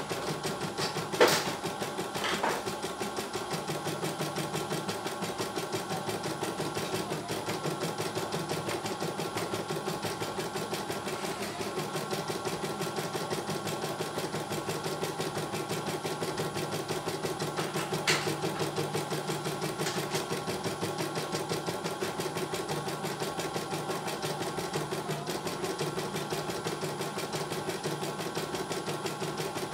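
CNY E900 computerised embroidery machine stitching a design, its needle running in rapid, even strokes. A few sharp clicks stand out, the loudest about a second in and another around eighteen seconds.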